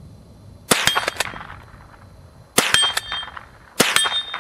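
Three .22 rifle shots from a Remington Model 12 pump-action, the first under a second in, the next two about two seconds and then one second apart. Each crack is followed by a short metallic ring and a few quick clicks.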